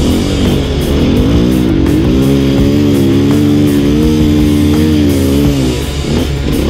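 Rock music with guitar: a held, bending lead line over steady chords.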